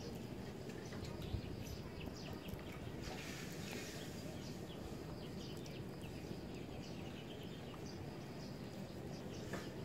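Quiet outdoor background noise with faint scattered bird chirps and soft handling sounds as lettuce leaves and rice noodles are gathered by hand. There is a soft knock about a second and a half in, and a brief rustle around three seconds in.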